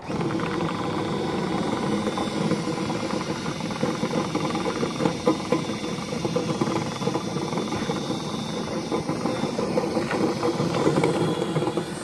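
Cordless drill spinning a flexible cleaning rod inside a clogged dryer vent duct, the rod rattling against the duct as it breaks up packed lint. It starts abruptly and runs steadily.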